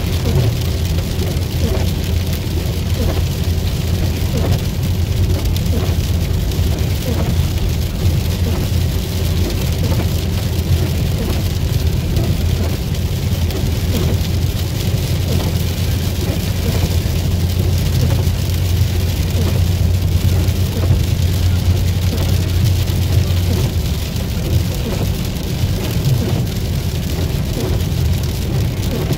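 Rain falling on a car's roof and windshield, heard from inside the moving car over steady engine and tyre noise. A low hum eases off near the end.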